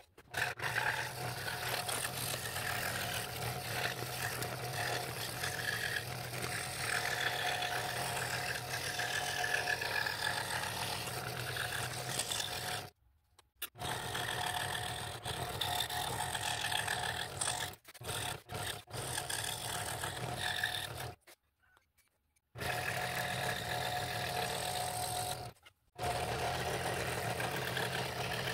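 Scroll saw running steadily while its fine blade cuts thin wood: a motor hum under a buzzing, hissing cut. The sound stops abruptly a few times and starts again.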